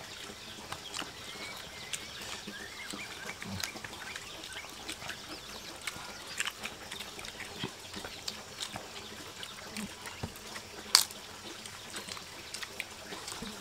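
People eating by hand, chewing and smacking their lips: a run of small wet clicks, with one sharper, louder click about eleven seconds in.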